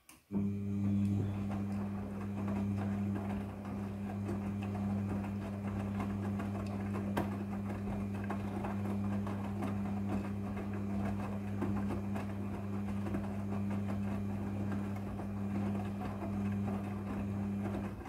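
A Midea front-loading washing machine's motor turns the drum in one long washing rotation, a steady low hum with the load of clothes tumbling and rustling inside. It starts suddenly just after the beginning and stops abruptly at the end.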